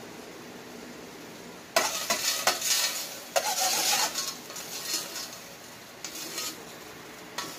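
A metal cooking utensil scraping and clattering inside an aluminium pot for about two seconds, then a few lighter scrapes and a single clink near the end, over a steady low hiss.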